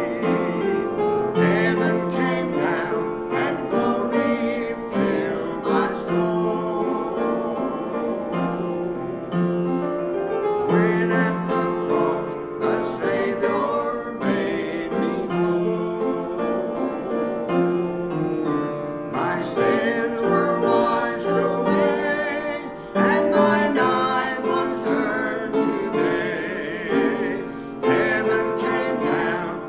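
A woman and a man singing a slow duet to piano accompaniment, with long, wavering sung notes.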